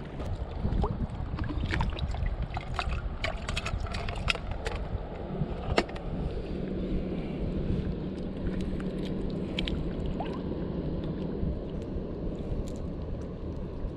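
Steady wind rumble on the microphone over shallow water, with a scatter of small clicks and taps from hands working a fishing line and hook. The clicks come thickest in the first few seconds, and one sharper click falls about halfway.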